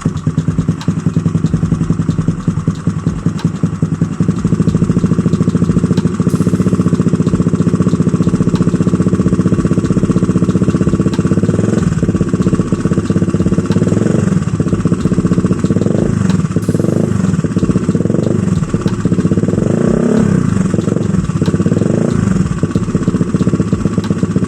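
Single-cylinder four-stroke motorcycle engine running through an ABF Racing BLT aftermarket silencer with a 25 cm canister. It idles steadily, then about halfway through it is revved in a series of short throttle blips.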